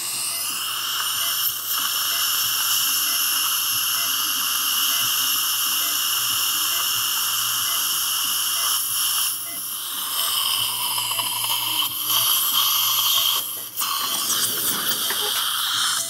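Dental implant motor driving a contra-angle surgical handpiece and drill into the jawbone, a steady high-pitched whine while preparing the implant site. It dips briefly twice in the second half as the drilling pauses.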